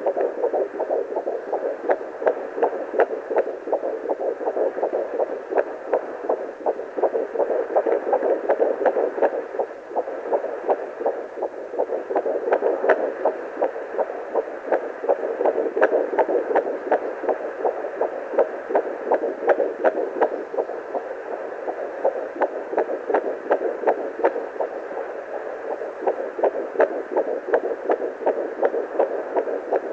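Pocket fetal Doppler picking up a baby's heartbeat at 12 weeks 3 days of pregnancy: a fast, regular pulsing whoosh over a steady hiss.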